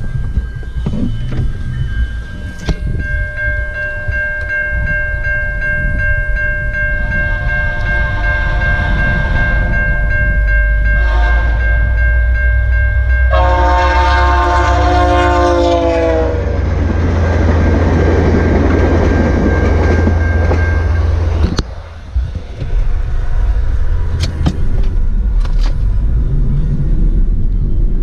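Railway level-crossing bell ringing steadily while an approaching train sounds its horn: two faint blasts, then a long loud one whose pitch drops at the end as the train reaches the crossing. A heavy rumble of the train passing follows, and the bell stops about twenty seconds in.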